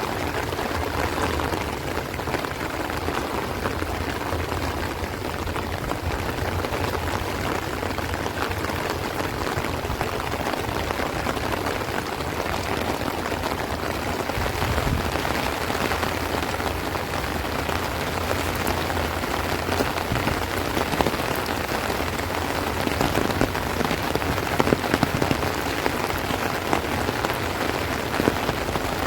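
Heavy rain falling steadily on rice plants and trees, a dense, even patter with a few louder, sharper drops in the later part.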